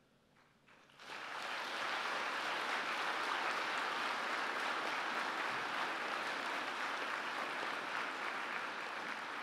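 A large audience of graduates applauding: near quiet for the first second, then steady, dense clapping that starts about a second in and carries on, easing a little near the end.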